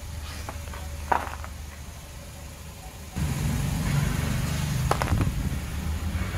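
Car tyre rolling over a paper egg tray of hard candies and chocolate, crushing them with sharp cracks, the loudest about a second in and another near five seconds. A car engine runs underneath, louder from about three seconds in.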